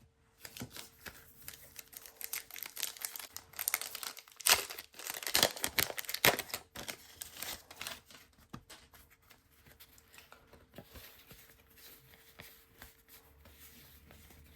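A trading-card pack wrapper being torn open and crinkled: a run of crackly rips and rustles, loudest around the middle, then quieter rustling as the cards are handled.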